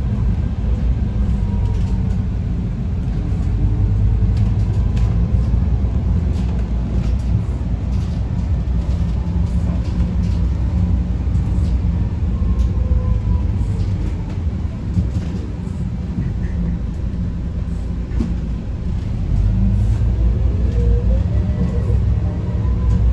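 Cabin sound of a Mercedes-Benz O500LE bus on compressed natural gas pulling away and driving: a steady low engine and drivetrain rumble with a faint whine and scattered light clicks and rattles. It eases off briefly past the middle and grows louder again near the end.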